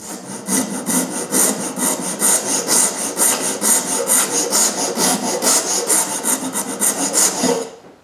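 Hand rasp filing the edge of a cut-out in a thin wooden frame: rapid, even back-and-forth scraping strokes that stop shortly before the end.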